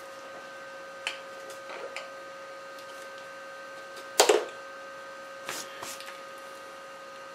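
Metal chips being brushed off a milling-machine vise and its parallels with a small brush: soft scrapes and a few light knocks, the loudest a sharp knock about four seconds in, over a steady hum.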